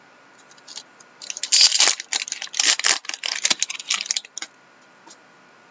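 Stiff hockey trading cards being slid and flicked off a stack one past another, a dense run of crackling, snapping card edges from about a second in until about four and a half seconds.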